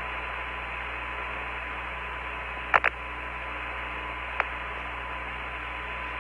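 Steady radio hiss on the Apollo 15 air-to-ground voice loop between transmissions, with a faint steady tone. A quick double click comes a little under three seconds in, and a single click comes near four and a half seconds.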